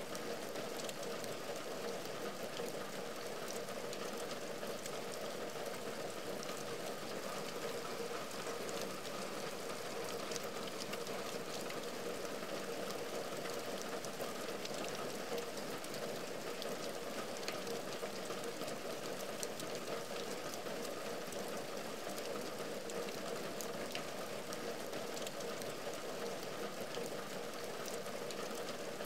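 Steady rain falling on a window and its ledge: an even hiss with many individual drops ticking sharply through it.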